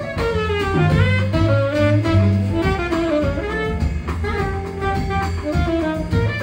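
Background jazz music: a saxophone plays a flowing melody over bass and drums.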